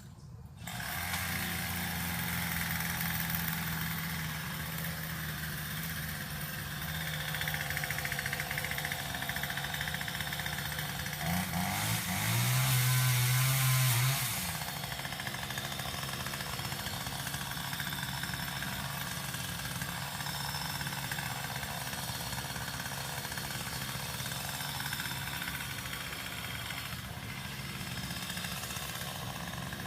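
A small engine running steadily. About twelve seconds in it revs up for a couple of seconds, then drops back to its steady note.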